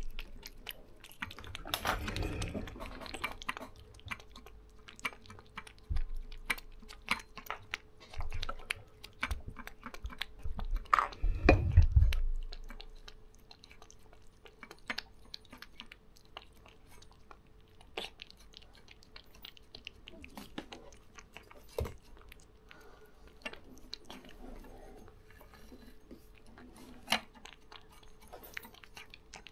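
Cat licking and chewing a liquid treat from a metal jar lid: a steady run of quick wet clicks. There are a couple of louder bumps, about two seconds in and again near the middle.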